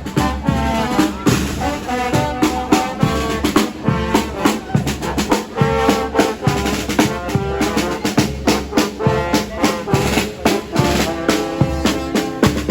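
Tamborazo band playing: trumpets and trombones carrying a melody over a steady tambora bass-drum beat.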